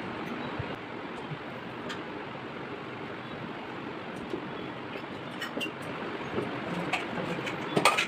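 Steady background rushing noise with scattered light clicks of metal puja vessels being handled, and a sharp metallic clink near the end as a brass or steel vessel is set down.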